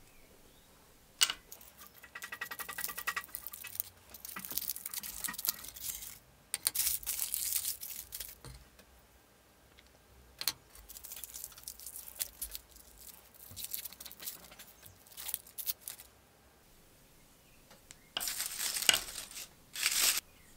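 Wooden straight-razor handle scales being handled and pulled apart: a sharp crack about a second in, then a series of rasping, tearing bursts, the loudest two near the end.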